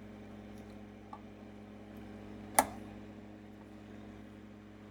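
Low steady hum from the opened, running monitor chassis, with a faint tick about a second in and one sharp click about two and a half seconds in as a trim potentiometer is being adjusted with a tool.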